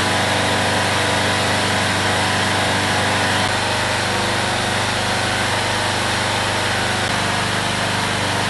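Small petrol engine running steadily, as of the power unit driving a hydraulic rescue cutter-spreader being used to cut through iron fence bars. Its note shifts slightly twice.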